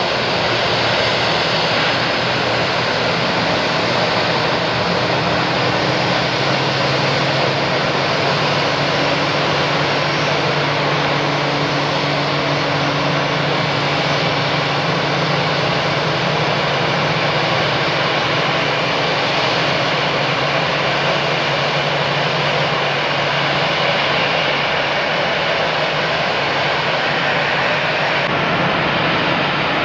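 Steady rushing noise of jet airliner engines at an airport, with a low steady hum in the middle stretch.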